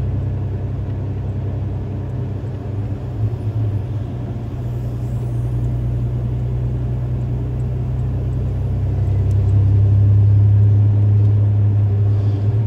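Truck engine and road noise heard from inside the cab while driving, a steady low drone that grows louder about nine seconds in.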